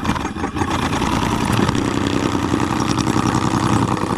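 A power tool starts up abruptly and runs steadily at full speed, shaving down the top part of a cut.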